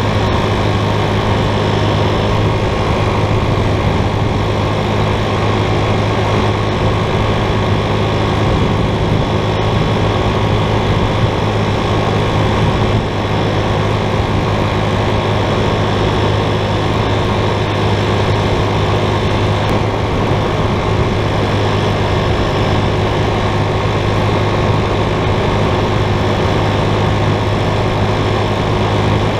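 Steady drone of a vehicle on the move: engine and road noise as an even low hum that does not change.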